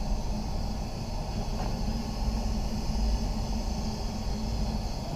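Spray booth's ventilation fans running: a steady rumbling rush of air with a faint hum.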